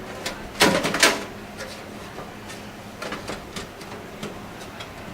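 A computer power supply unit being set into a metal PC case: a cluster of metal knocks and scrapes about a second in, then lighter clicks and taps.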